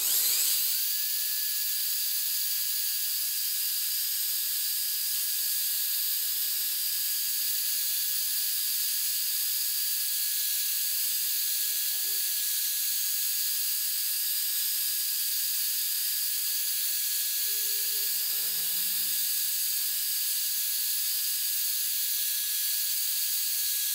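Cordless drill spinning a polishing pad loaded with glass-polishing compound against a car windshield: a steady high whine over hiss, which spins up about a second in and then holds at an even speed.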